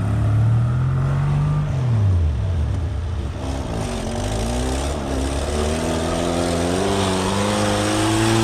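Off-road 4x4's engine revving hard as it struggles through deep snow. The revs rise and drop back about two seconds in, then climb steadily again.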